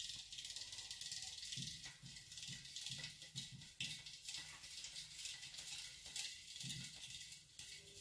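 Faint wire whisk stirring a vinegar and baking soda solution in a stainless steel bowl: a steady hiss of the swirling liquid with quick irregular scraping and clinking of the whisk against the metal. The baking soda is dissolving and its foaming dying down as it is stirred in.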